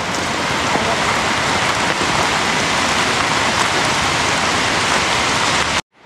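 Steady rain pattering on an umbrella overhead: a dense, even hiss with faint drop ticks that cuts off suddenly near the end.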